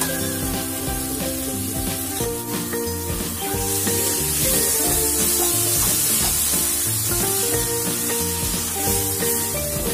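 Tuna chunks and fried onions sizzling in a hot metal kadai while a spatula stirs them, the sizzle strongest in the middle. Background music plays throughout.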